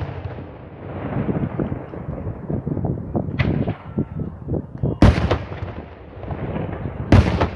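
Daytime fireworks display: aerial shells bursting overhead in a continuous run of crackling reports, with sharp loud bangs about halfway through and again near the end.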